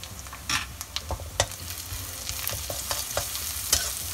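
Metal spatula scraping and knocking against a wok as chopped onions and ground spices are stir-fried in hot oil, sizzling. The knocks come irregularly, and the sizzle grows louder from about two seconds in as the spices roast.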